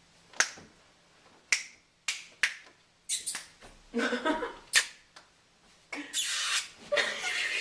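A handful of sharp clicks or snaps at uneven intervals, with some brief rustling.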